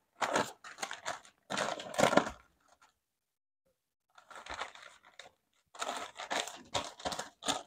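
Sheet of brown pattern paper rustling and crinkling as it is folded into four by hand, in irregular bursts with a silent pause of about a second and a half in the middle.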